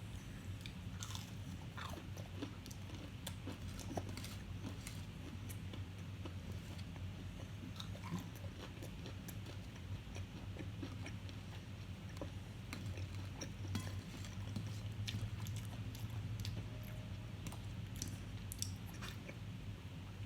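A person chewing and biting food, with scattered small crunches and mouth clicks, over a steady low hum.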